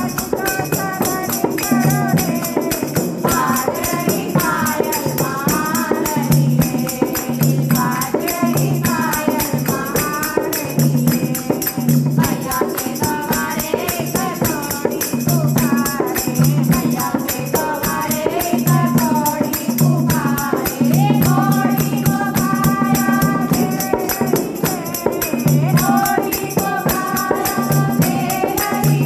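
Hindu devotional bhajan: a voice singing a melody over a steady repeating beat, with jingling hand percussion throughout.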